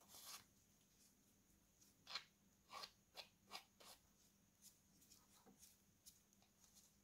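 Faint, short scraping and rubbing strokes of a small tube pressed against the electric scooter's controller case while smearing thermal paste. The strokes come in a quick run about two to four seconds in, with softer ones after.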